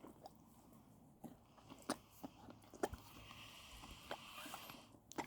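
Soft snoring breath from a sleeper, faint, with a few small mouth clicks and smacks.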